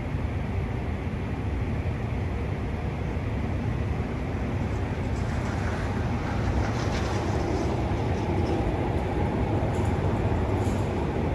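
Steady low rumble of outdoor city background noise, with a little extra hiss from about five to nine seconds in.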